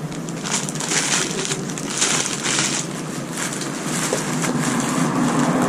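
Parcel packaging being torn open and crinkled in several short bursts, over steady road-traffic noise.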